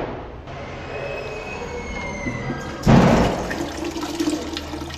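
Toilet flushing: a sudden loud rush of water into the bowl about three seconds in, fading over the next second or so. A loud rush is already dying away at the very start.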